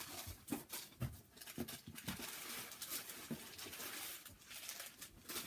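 Rustling with several light knocks, the sound of small ornaments and their wrapping being handled and set down.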